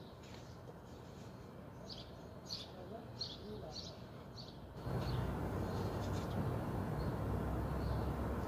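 Small birds chirping, a string of short high chirps, then about five seconds in a steady low rushing noise starts abruptly and runs on under a few fainter chirps.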